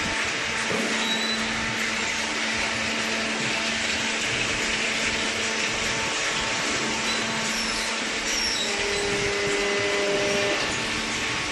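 Hydraulic carton baler running: a steady machine noise with a constant hum, and a higher steady tone joining for a couple of seconds near the end.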